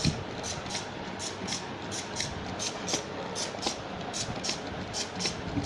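CNC machine running with a steady, even clicking, about four clicks a second, over a continuous mechanical hiss.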